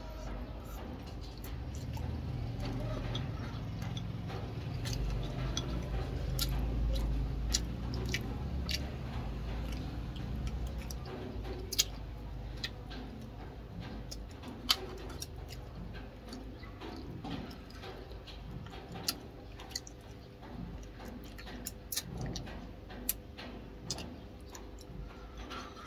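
Close-up eating sounds: sharp, irregular clicks of wooden chopsticks against a small porcelain bowl, with chewing, over a faint steady hum.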